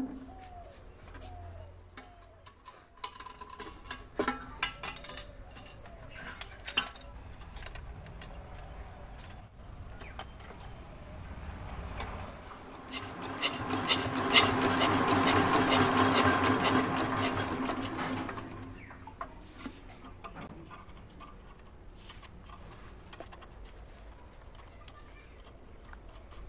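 Small single-cylinder diesel engine, its tappet clearance freshly adjusted, turning over and running with a fast mechanical clatter for about five seconds, then winding down. Scattered clicks and knocks of handling the engine come before it.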